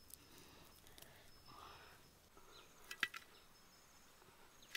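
Faint handling sounds of hands in dry, sandy soil while catching a cricket, with a short cluster of light clicks about three seconds in.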